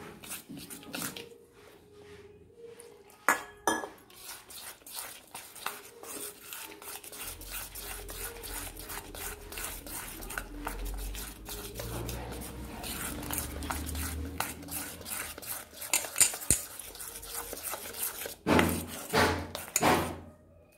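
Gram-flour batter being mixed by hand in a stainless-steel bowl: quick clicks and scrapes of hand and bangle against the steel, with a few heavier knocks near the end.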